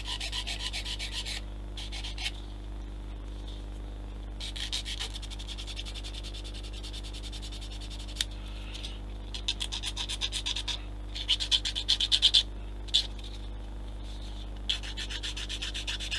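Sanding small plastic model-kit parts by hand, in several bursts of quick back-and-forth strokes, the loudest about three quarters of the way through. A steady low hum runs underneath.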